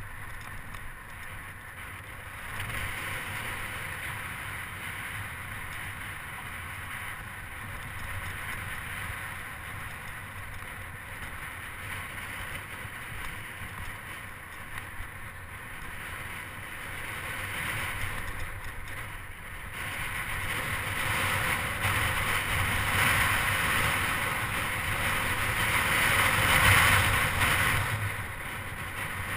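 Steady wind noise rushing over the microphone of a moving bicycle, with a low rumble from rolling over rough, cracked asphalt. It grows louder for a few seconds in the last third, then eases off near the end.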